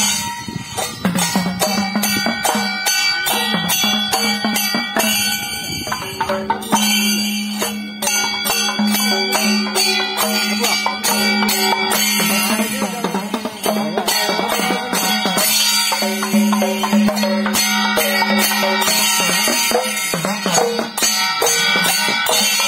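Traditional music: rapid drum and small-percussion strokes over a steady held drone note.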